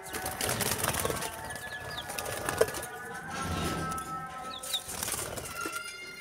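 Pigeons and chicks moving about in their pen: wings flapping and rustling, with a few short peeps from the small chicks.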